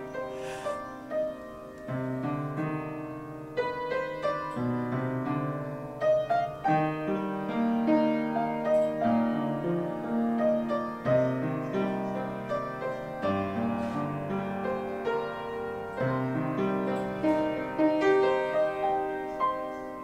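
Piano music: a melody played over sustained chords.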